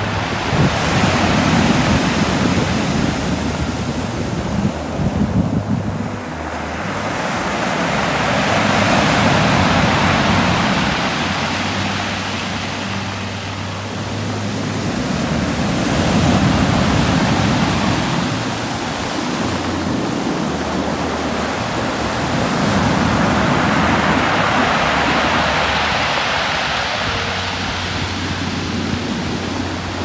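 Sea waves breaking and washing up over a shingle beach of small pebbles, the surf swelling and fading in slow surges about every seven seconds.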